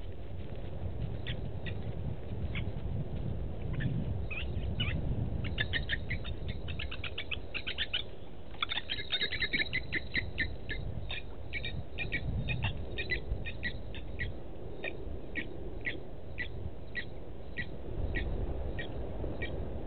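Blacksmith lapwings giving their metallic 'tink' alarm call: short, sharp, clinking notes. The notes come in a fast run through the middle, then settle to about two a second.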